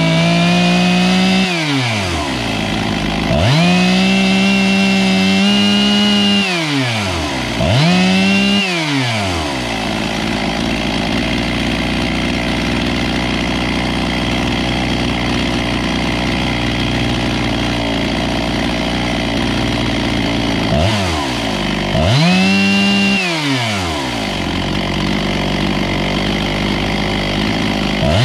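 Husqvarna 257 two-stroke chainsaw engine being blipped to full throttle while its high-speed (H) carburettor jet is tuned. It revs up and holds a high steady pitch for a second or a few, then drops back to idle, about four times. A long stretch of idle of about twelve seconds comes in the middle.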